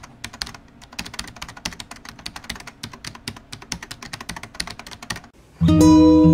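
A quick, uneven run of sharp clicks for about five seconds under the animated intro. Near the end, strummed guitar music starts loudly.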